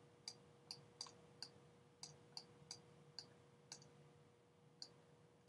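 A stylus tapping on a tablet screen during handwriting: about a dozen faint, sharp clicks at irregular intervals, over a faint steady hum.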